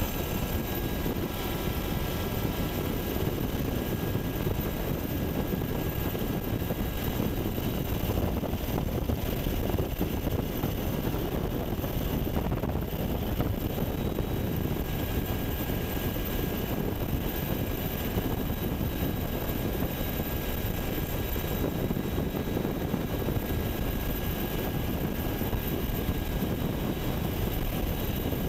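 UH-60 Black Hawk helicopter in flight, heard from on board: a steady drone of the main rotor and twin turboshaft engines, with a faint high whine held over it.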